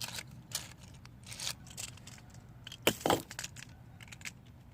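Hard plastic clicking and clattering as Beyblade tops and a launcher are handled, with a string of short knocks and the loudest knock just before three seconds in.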